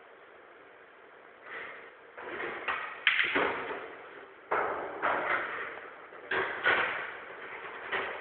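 Pool balls clacking: a cue strike, then balls knocking into one another and off the cushions, about seven sharp knocks spread over several seconds, the loudest about three seconds in.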